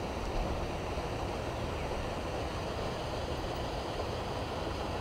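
Steady wind rushing and buffeting on the microphone, a low fluctuating rumble under an even hiss.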